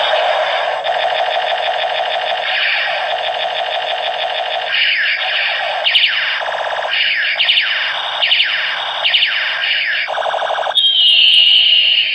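Battery-powered light-up toy revolver playing its electronic shooting sound effects through a small speaker: a pulsing electronic buzz, then a rapid run of falling zaps, then a longer high falling zap before it cuts off abruptly.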